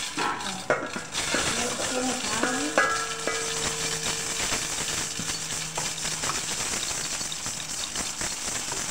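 Freshly hand-ground dal being sifted in a wooden-framed sieve shaken back and forth over a steel bowl: a steady hissing rattle of grains and grit sliding over the mesh. The sifting separates the clean split dal from the flour and husk.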